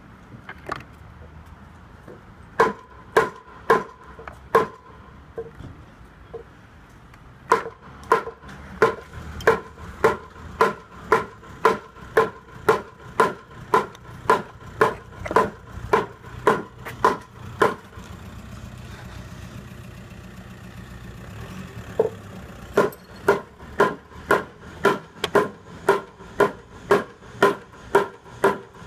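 Repeated hammering knocks, about two a second, each with a short ringing note, in three runs with brief pauses between them; a low steady hum fills the middle pause.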